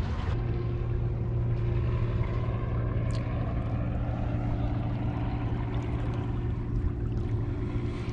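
A boat engine running at a steady speed: a low, even hum.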